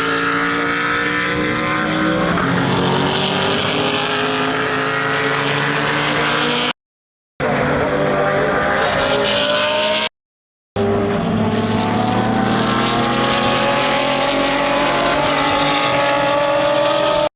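GT racing car engines at full throttle, pitch climbing slowly as they pull hard down a straight. The sound cuts out briefly twice.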